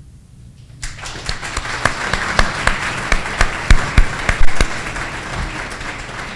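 Audience applause breaking out about a second in, with sharp single claps from someone close by standing out above the crowd, then easing off near the end.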